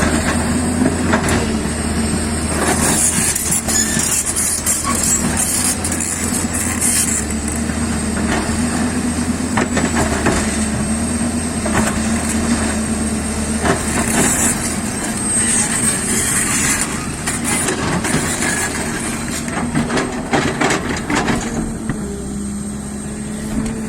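Hyundai excavator's diesel engine running steadily under load, with irregular knocks and scrapes as the machine works soil and rock. The engine note drops slightly near the end.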